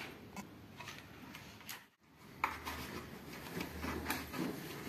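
Faint clicks, light knocks and rustles of a glass tea jar and its wooden lid being handled on a table. The sound drops out briefly about two seconds in.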